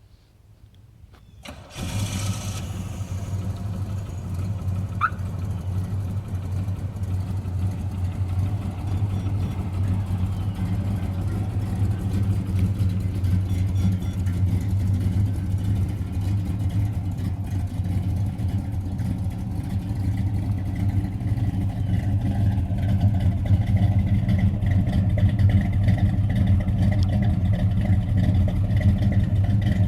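A 1985 Chevrolet Monte Carlo SS's V8 engine starts by remote starter just under two seconds in, then settles into a steady idle. A short chirp comes about five seconds in.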